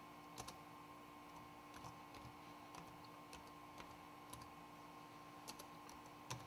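Faint, slow keystrokes on a computer keyboard, irregular clicks about one or two a second, over a faint steady hum.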